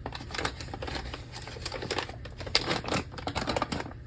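Dense run of crinkling and clicking from a bag of ground coffee and a scoop being handled, just before coffee is scooped into the coffeemaker's filter.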